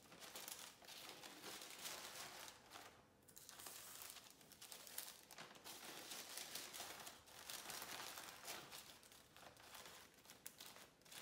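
Faint, irregular crinkling and rustling of baking paper and a plastic zip-lock freezer bag being handled as food is packed into it.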